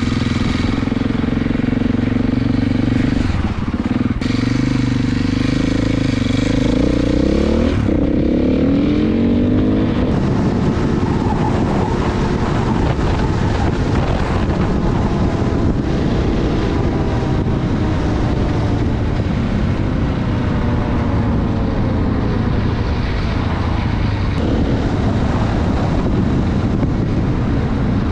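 KTM EXC dirt bike's single-cylinder engine running under way, its pitch rising and falling with the throttle after a few steadier seconds.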